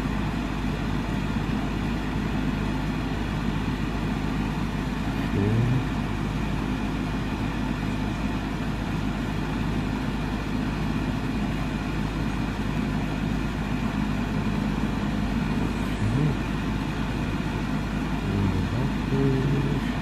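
A 2.5-ton Goodman air conditioner condensing unit running steadily in cooling: a constant hum with several steady low tones under an even rush of air from its fan.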